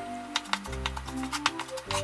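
Background music with several sharp, irregular knife chops as a chef's knife minces onion on a wooden cutting board.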